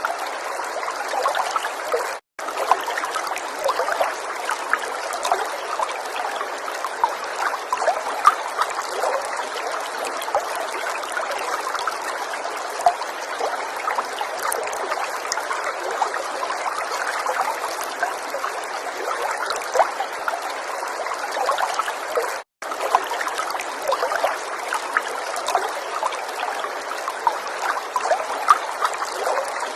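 Water falling and trickling steadily, a continuous splashing hiss with many small drips and splashes through it. The sound drops out for a split second twice, about two seconds in and again about twenty-two seconds in.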